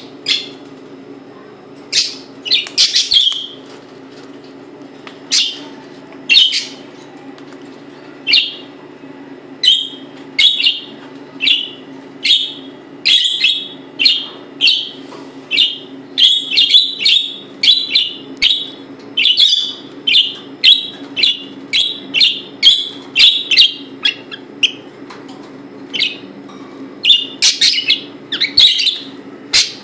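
Pet parrot giving short, sharp chirping calls over and over, in runs of roughly one to two calls a second with a few longer gaps between them.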